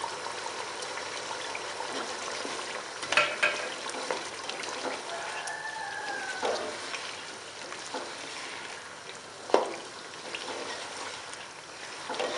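Chicken korma sizzling and bubbling in a non-stick pot while a plastic slotted spoon stirs it. The spoon knocks against the pot a few times, loudest about three quarters of the way through.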